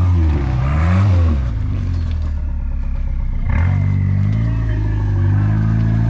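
Off-road rock crawler's engine revving up and down repeatedly as it crawls over rocks, with a sharp knock a little past halfway through.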